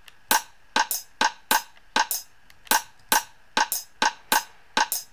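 A 707 rimshot drum sample, from the Roland TR-707, looping in a syncopated step-sequencer pattern. The sharp, dry hits each carry a short ringing tone, about three a second, with some falling in quick pairs.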